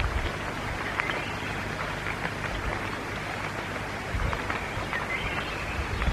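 Steady rain falling, an even hiss with a few faint taps.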